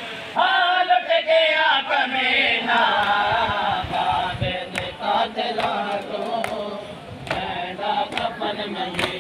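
A crowd of men chants a mourning noha in unison. From about halfway in, sharp hand strikes join the chant, typical of matam chest-beating.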